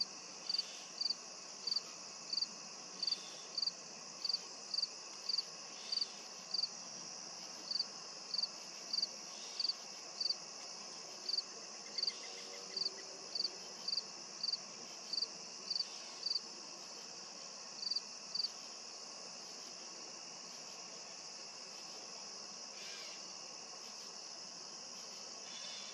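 A cricket chirping, one short high chirp about every half second, stopping about 18 seconds in, over a steady high-pitched chorus of insects in the field.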